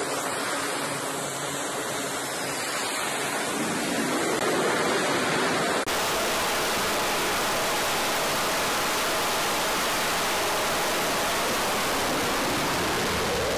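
Steady roar of jet engines on an aircraft carrier's flight deck. About six seconds in it cuts to a louder, even roar as an F/A-18 runs on the catapult.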